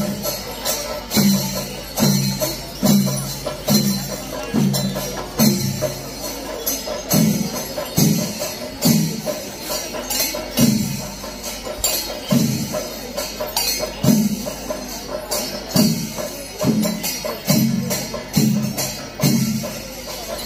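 Kerala temple festival percussion ensemble: drums beat a steady pulse about once a second under a constant jangle of clashing hand cymbals.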